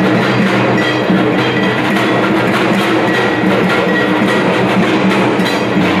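Dhak, the Bengali barrel drum beaten with two sticks, played in a fast, continuous rhythm for the puja.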